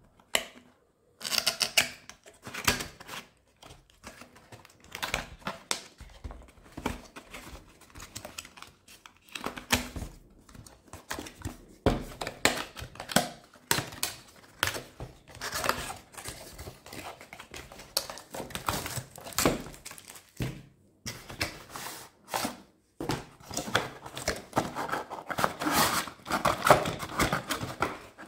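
Cardboard retail box being opened and handled: irregular scraping, rustling and clicking of paperboard flaps and tabs as the inner cardboard tray is worked out. The handling is busiest and loudest near the end.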